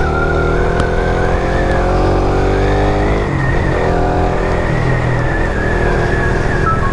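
Suzuki Raider 150 FI's single-cylinder four-stroke engine pulling under acceleration, its pitch rising steadily, dropping with a gear change about three seconds in, then rising again.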